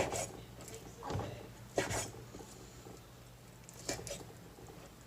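A few separate knocks and light clatters of things being handled on a kitchen counter, spaced a second or two apart and growing fainter, over a faint steady hum.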